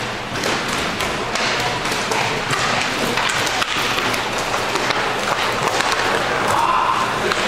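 Inline hockey play: frequent, irregular clacks and knocks of sticks and puck, with duller thuds, over a steady rink din.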